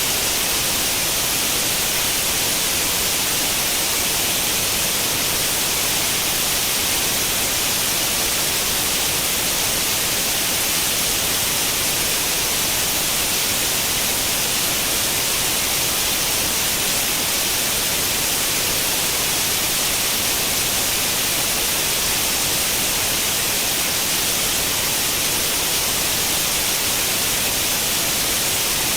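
Steady white noise imitating the static hiss of an old CRT television tuned to no channel, an even hiss weighted toward the high end, unchanging throughout.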